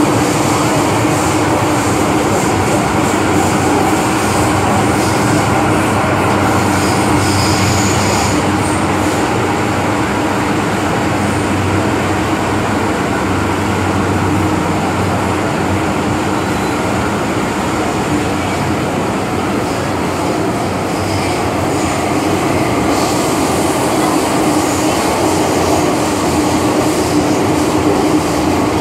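MTR M-Train subway car running through a tunnel, heard inside the carriage: a steady rumble of wheels on rail with a constant low hum from the train's running gear.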